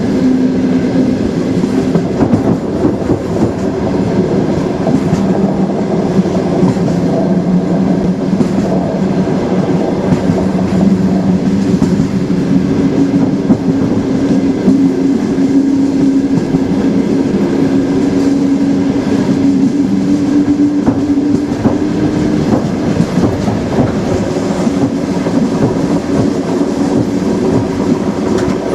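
Moving train: a steady rumble of the wheels on the rails with clattering over the rail joints, over a low hum.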